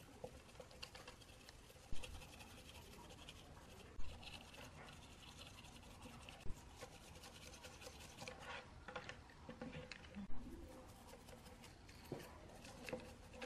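Bristles of a flat paintbrush scrubbing over a circuit board's push switches and solder side: a continual dry scratching and brushing to clean the board. Four sharp knocks stand out, spread through the scrubbing.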